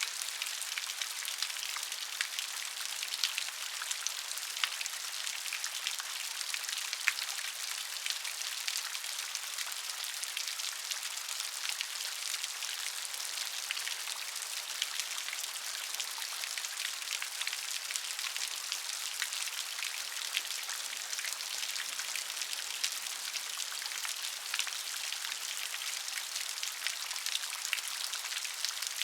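Rain falling steadily, a dense patter of many small drop ticks over an even hiss, with no low rumble.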